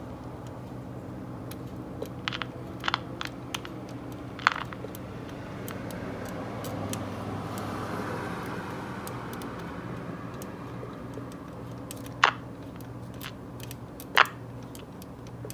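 Steady low mains hum under a soft hiss that swells and fades, with scattered sharp clicks and taps from handling the set: a cluster in the first few seconds and two louder clicks near the end.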